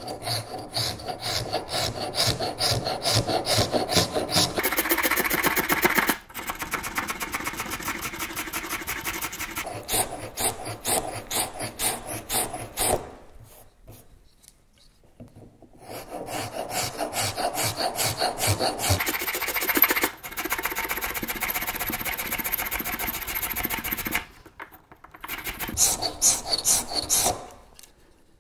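Scratch stock's sheet-steel blade in a wooden body scraping along the edge of a wooden leg blank: rasping back-and-forth strokes in long runs, cutting a molding profile into the wood. It pauses for a couple of seconds about halfway through and briefly again near the end.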